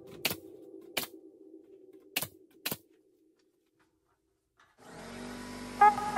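Pneumatic nail gun firing four times, short sharp shots driving nails through plywood into the wood framing, over a faint low hum. About five seconds in, electronic background music with a regular beat starts.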